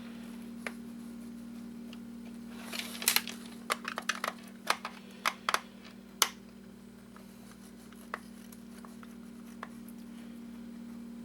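Scattered sharp clicks and light clatter of a screwdriver, screws and the plastic casing of a plug-and-play TV game being taken apart, a cluster about three seconds in and several single clicks over the next few seconds, over a steady hum.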